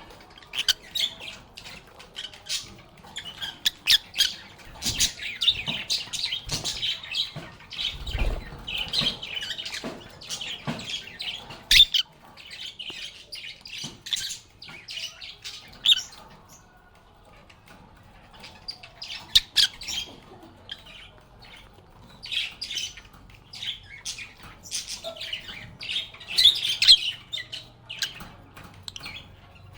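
A group of lovebirds chirping and squawking in rapid, overlapping chatter, with a few sharp clicks among the calls and a brief lull about halfway through.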